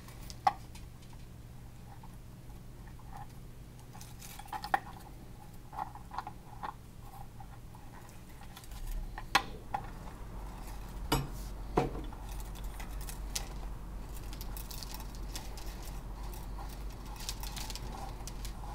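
Scattered light clicks and knocks as a plastic instrument enclosure and its metal probe and wires are handled and fitted together, over a steady low hum.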